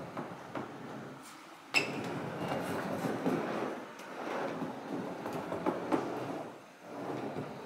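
Skateboard wheels rolling back and forth on a wooden mini ramp, a rumble that swells and fades in waves with short lulls as the board slows at the top of each wall. A sharp clack about two seconds in.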